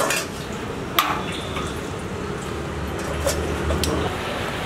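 Metal tongs clinking against a small steel pan on a gas burner, two sharp clinks about a second apart, over a steady hiss.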